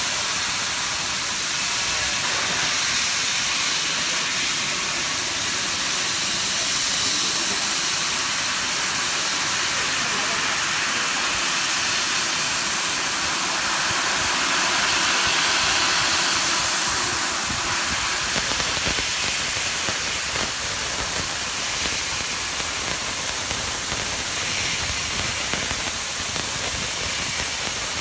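1000 W fiber laser cutter cutting 4 mm stainless steel: a steady, even hiss of the assist-gas jet blowing through the cutting nozzle and kerf.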